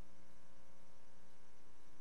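Steady electrical hum with a layer of hiss and no other sound: the noise floor of a silent archival film transfer.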